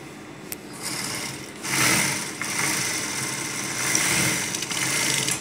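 Industrial lockstitch sewing machine stitching fabric. It speeds up about a second in, runs fast and steady, then stops suddenly near the end.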